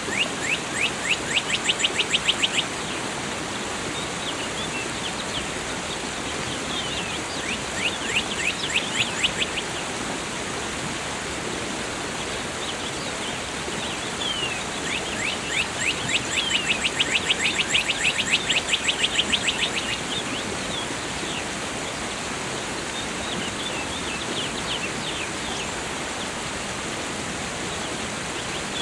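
Steady rushing of falling water with a songbird singing over it. The bird gives runs of rapid, down-slurred notes lasting a few seconds each, the longest one near the middle.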